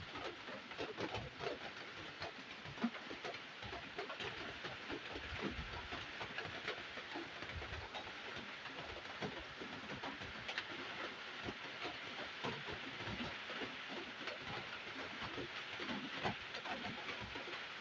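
Heavy rain falling: a steady dense hiss of countless drops, with scattered sharper drips and splashes.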